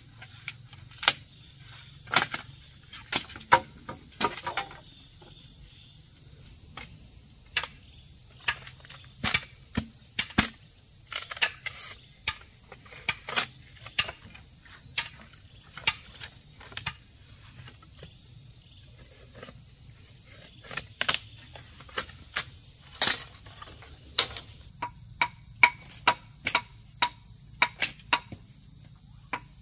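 Insects shrilling steadily in one high tone, with irregular sharp knocks over it, a few at a time and in quick runs near the end.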